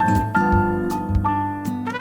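Background jazz music with held melody notes over a bass line, vibraphone- or piano-like in tone.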